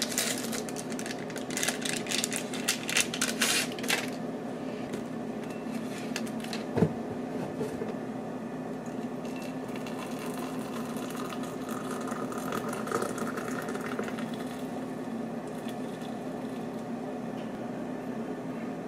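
A steady low mechanical hum runs throughout, most likely an appliance. Over it come rapid clinks and clatter in the first few seconds and a single sharp knock about seven seconds in, as hot water and then syrup are poured into a ceramic mug with a coffee bag.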